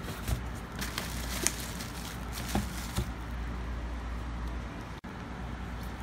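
Handling noise from unpacking: a few light clicks and knocks with some rustling as items are set down on a tabletop, over a steady low hum.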